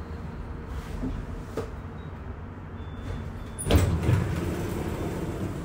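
A Bombardier Flexity tram standing at a stop with its drive quietly running. About two-thirds of the way in, the sliding passenger doors move with a loud clunk, followed by a rush of noise.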